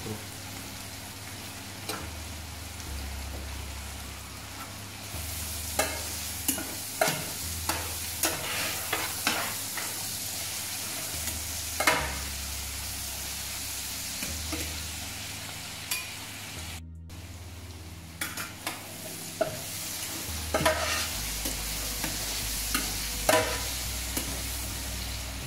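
Diced root vegetables and bacon sizzling steadily in a large stainless steel braising pan, with sugar just stirred in. A metal slotted turner scrapes and clicks against the pan bottom in short strokes as the mix is stirred.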